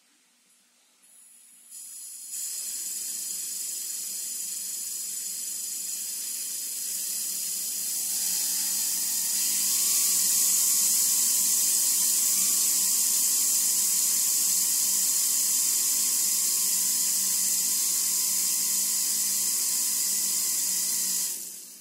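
3D-printed plastic air turbine run on compressed air. A loud air hiss comes on in steps within the first couple of seconds. About eight seconds in, a whine rises in pitch as the rotor spins up, then holds steady. The sound dies away quickly near the end.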